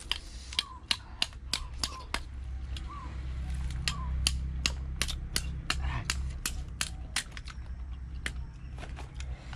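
A rapid, uneven series of sharp clicks, about two or three a second, over a low steady rumble.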